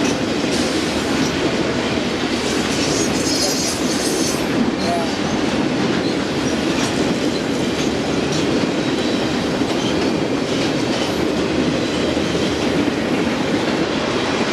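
Intermodal freight train of trailers on flatcars rolling past close by: a steady rumble of steel wheels on rail with irregular clicks over rail joints, and a brief high-pitched wheel squeal about three seconds in.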